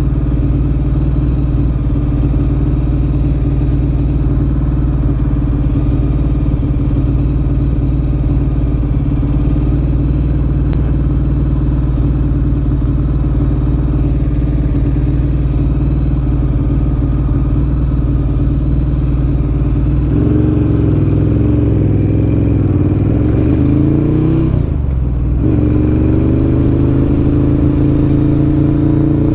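A Ducati Monster 1100 EVO's air-cooled L-twin with a Termignoni exhaust runs steadily, then about twenty seconds in it accelerates. The engine note rises, dips briefly at a gear change, and rises again in the next gear.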